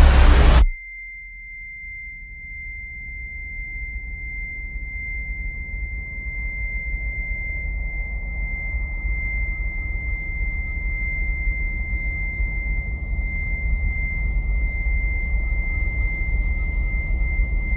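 Film-trailer sound design: a loud passage cuts off abruptly under a second in, leaving a single steady high-pitched ringing tone like ear-ringing. A low rumble beneath it slowly swells louder.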